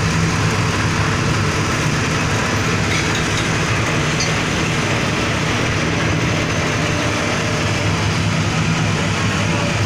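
Small petrol engine running steadily, driving a double-paddle dough mixer through its reduction gearbox, chain and gears.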